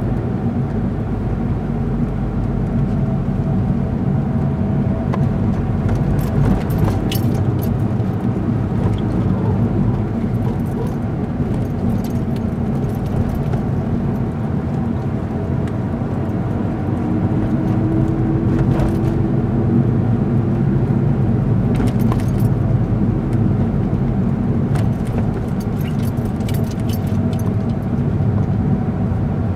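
Steady road and engine noise inside a moving car's cabin, a low rumble that barely changes, with light clicks and rattles now and then.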